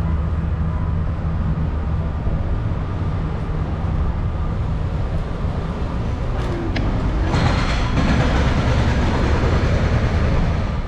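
Steady low rumble and hum of an electric scooter rolling over street paving. A louder rushing hiss joins it about seven seconds in.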